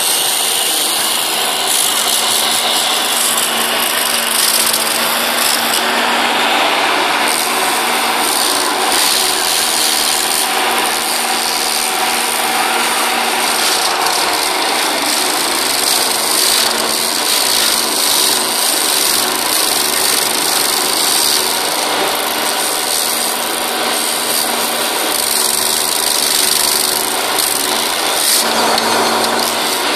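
Hydraulic stump grinder on a Case CX27B mini excavator grinding wood steadily, with the excavator's engine running underneath.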